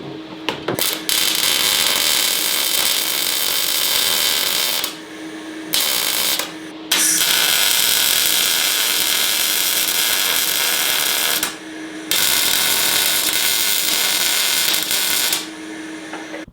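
MIG welder laying welds on the new mild-steel battery tray: four runs of steady hiss of a few seconds each, one of them short, with brief pauses between. A low steady hum shows in the pauses.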